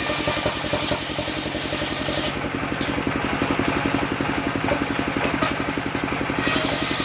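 Engine of a portable circular sawmill running steadily, with a fast, even pulse.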